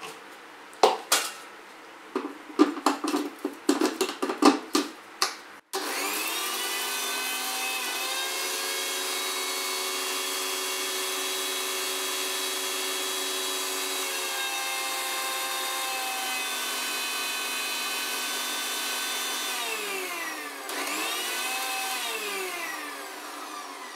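Clinks and knocks of a steel jar and lid being fitted onto a mixer grinder, then about six seconds in the grinder's motor starts and runs steadily, grinding roasted whole spices to a fine powder. Near the end the motor slows, picks up again briefly, then winds down.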